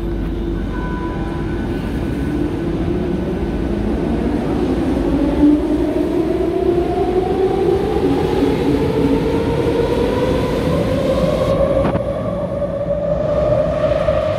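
Metro train pulling out of the station, its electric traction motors giving a whine that rises steadily in pitch as the train accelerates, over the rumble of the wheels on the track.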